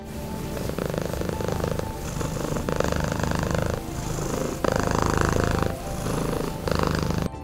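Domestic cat purring in slow, even cycles that swell and ease about once a second. The purring cuts off suddenly near the end.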